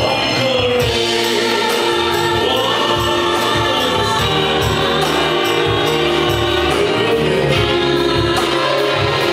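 Live band playing a song through a PA: sung vocals over electric guitar and a steady drum beat.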